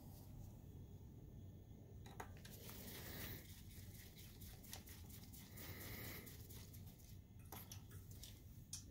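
Faint clicks and scrapes of a small screwdriver turning screws inside a projector's metal housing, a few separate clicks spread through otherwise near-silent room tone.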